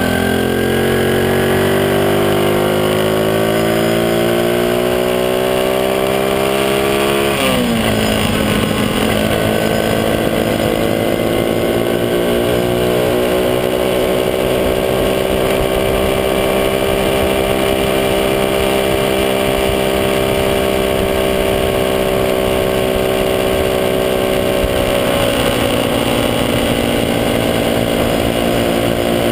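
Small motorcycle engine pulling hard, its pitch climbing for several seconds before dropping sharply at a gear change about seven seconds in. It then climbs again and settles at a steady cruising pitch, easing off slightly near the end.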